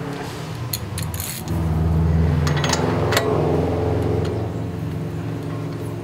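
A few sharp ratchet clicks as the 32 mm axle nut is run down. About a second and a half in, a louder, steady low engine hum begins and slowly fades.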